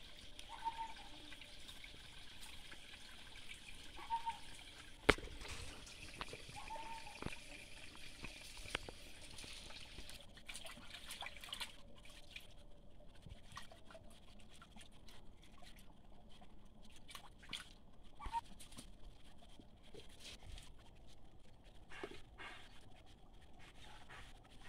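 Shallow stream water trickling and lapping as a puppy is washed in it by hand, with a few brief high squeaks. A single sharp knock comes about five seconds in.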